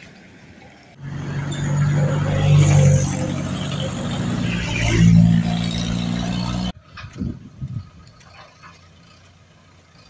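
A loud engine running with a low, steady hum that shifts pitch partway through. It starts abruptly about a second in and cuts off suddenly a little before seven seconds; after that only faint outdoor noise with a few low thumps remains.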